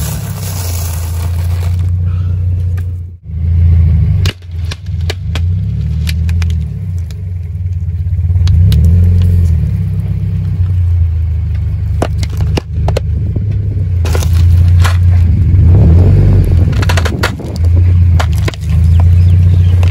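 Car tyre crunching dry instant noodle blocks, then, after a short break, rolling over plastic bottles packed with small candy balls, the plastic cracking and snapping as they split. A steady low rumble from the car runs underneath.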